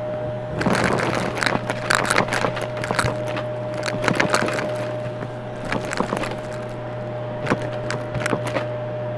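Vacuum cleaner running with a steady motor hum and whine, passing over a rug and sucking up crunchy debris that crackles and snaps irregularly, most densely in the first few seconds.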